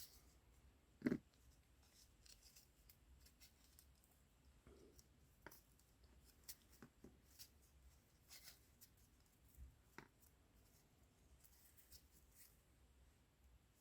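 Faint, scattered handling noises: small clicks and taps of objects being moved and set down, with one louder knock about a second in.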